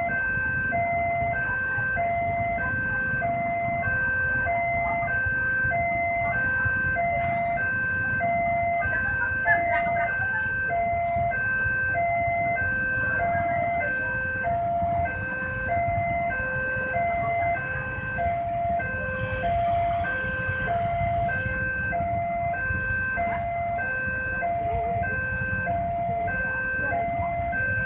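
Railway level-crossing alarm sounding its steady two-tone electronic ding-dong, the higher and lower notes alternating evenly without a break. Under it a continuous low rumble of engines.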